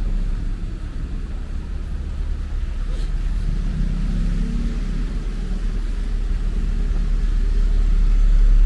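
Street traffic: car engines and tyres making a steady low rumble that grows louder toward the end as a vehicle approaches.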